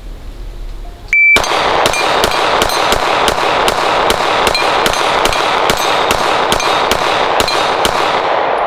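A shot timer gives one short beep, then a Glock 34 9mm pistol fires a rapid string of shots, about three a second for nearly seven seconds. Steel targets ring as they are hit.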